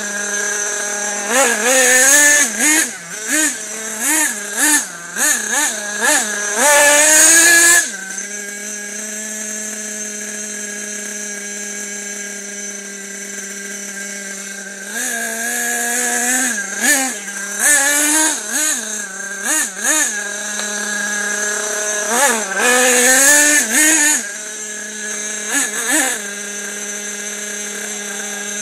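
Nitro RC buggy's small two-stroke glow engine revving in quick throttle blips that rise and fall in pitch, settling to a steady high-pitched idle for several seconds a little over a quarter of the way in, blipping again, then idling near the end.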